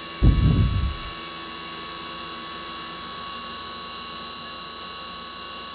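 CNC mill spindle driving a 3/16-inch four-flute end mill through 4140 steel at 5000 RPM under flood coolant: a steady machining whine made of several fixed high tones. A short low burst of sound comes about a quarter second in.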